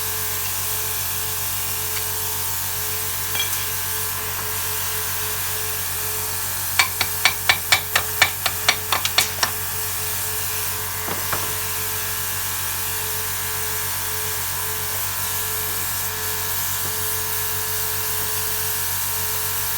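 Elettro 56 plasma cutter's internal twin-piston compressor running steadily. Near the middle come about a dozen sharp metal knocks, about four a second, as the cut piece of steel is struck to break the dross still holding it on.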